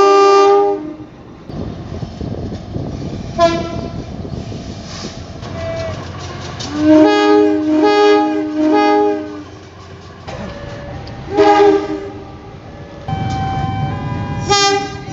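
Diesel locomotive air horns sounding several times in chord-like blasts. There are single short blasts, a run of three quick toots midway, and a longer, quieter blast near the end, over the rumble and clatter of a train on the rails.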